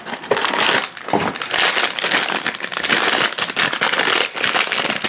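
Foil blind bag crinkling and crackling as hands pull it from its cardboard box and tear it open.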